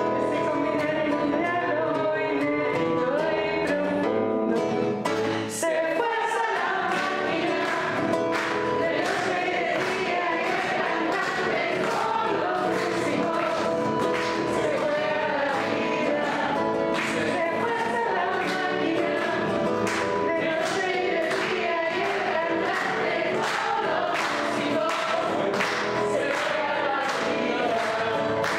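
A woman and a man singing a song together to an acoustic guitar, strummed in a steady rhythm that fills in about five seconds in.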